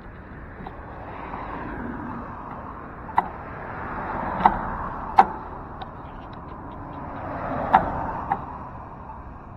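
Street traffic noise that swells as cars go by, three times. Several sharp clicks or knocks stand out as the loudest sounds.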